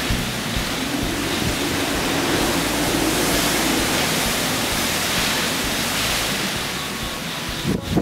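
Typhoon Trami's storm-force wind roaring through the garden, a loud rushing that swells about halfway through and eases again.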